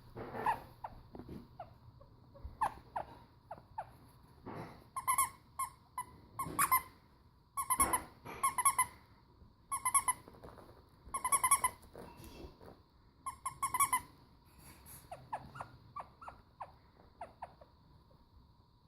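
A six-week-old chocolate Labrador puppy at play. Short, high squeaks come in quick runs, busiest from about five to fourteen seconds in.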